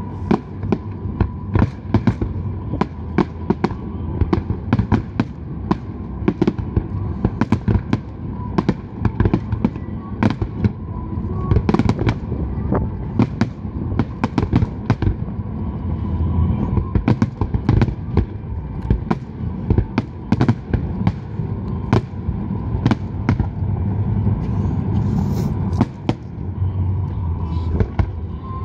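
Large fireworks display: a rapid, uneven run of sharp bangs, several a second, over a continuous low rumble.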